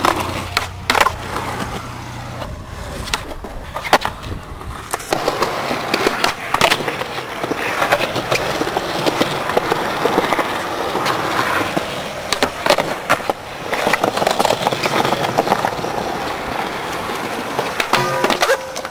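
Skateboard wheels rolling over skatepark concrete, with sharp clacks of the board popping and landing several times. Near the end the board hits and scrapes a rail.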